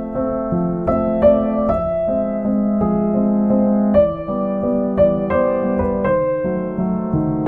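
Slow, gentle solo piano music, with a new note or chord sounding about every half second.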